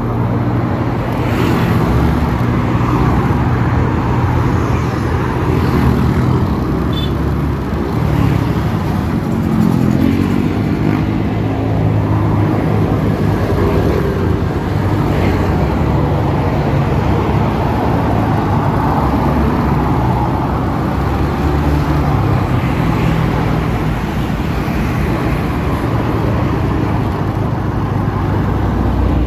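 Motorcycle engine running while riding slowly along a road, its pitch shifting up and down with the throttle, with road traffic going by.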